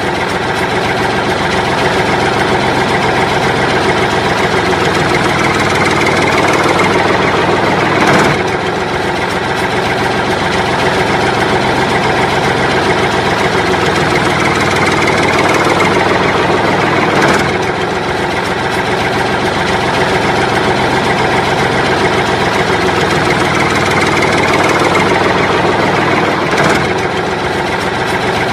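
A recorded engine running steadily, laid over the picture as a sound effect for the toy construction vehicles. It is a loop that repeats about every nine seconds, swelling slightly and ending each pass with a brief click.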